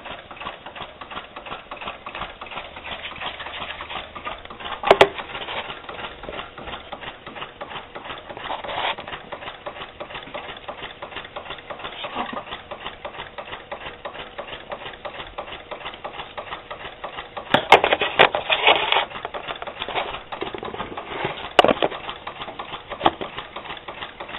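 Weed-eater engine converted to run on steam, running steadily with a fast, even ticking. A few louder knocks stand out: one about five seconds in, a cluster near eighteen seconds, and another near twenty-one seconds.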